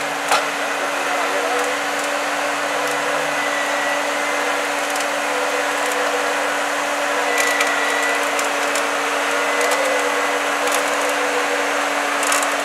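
Steady whirring mechanical noise with a constant low hum, broken by a few sharp cracks and clicks.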